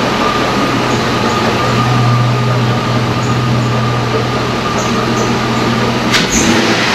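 GMC engine running with its serpentine belt drive turning, a steady high-pitched whine holding over the engine noise; the belt has just been lubricated to cure a squeak. A short click comes about six seconds in.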